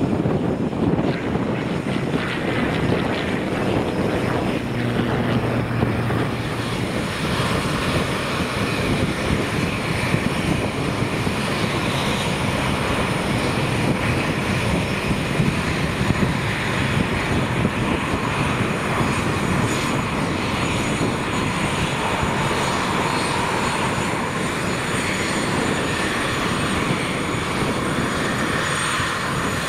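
Dassault Falcon three-engine business jet taxiing, its turbofan engines running at low power with a steady whine over a wide rushing hiss.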